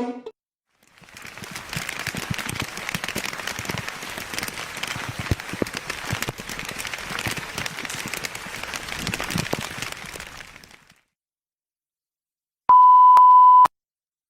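A crackling noise full of small clicks runs for about ten seconds and stops. After a pause comes one loud, steady electronic beep lasting about a second.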